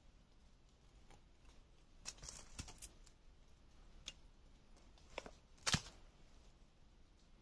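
A few sharp clicks and taps from a knife and thin bamboo pieces being handled in trap-making. There is a cluster about two to three seconds in, a single click near four seconds, and the loudest snap near six seconds.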